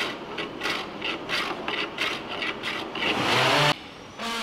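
Hand plane shaving a purpleheart timber in short, quick strokes, about four a second, then one longer, louder stroke that cuts off sharply.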